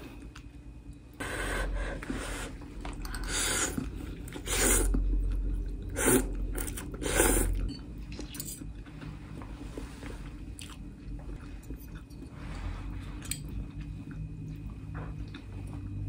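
A person eating tofu noodles in stew, close to the microphone: several loud slurps and chews in the first eight seconds, then quieter chewing.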